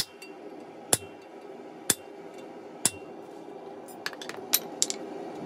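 Hand hammer blows on a red-hot 3/4-inch square mild steel bar on an anvil: four heavy strikes about a second apart, then a quick run of five lighter taps near the end.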